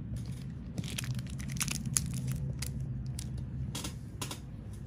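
Irregular crackles and clicks from gloved hands handling a metal comedone extractor close to the microphone, starting about a second in, over a steady low hum.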